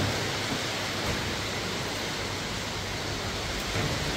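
Steady, even rushing hiss of background noise, with no distinct sounds standing out.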